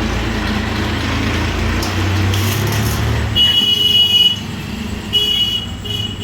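Steady rumble of motor-vehicle traffic, then a high-pitched horn-like tone sounding three times, the first nearly a second long and the next two shorter.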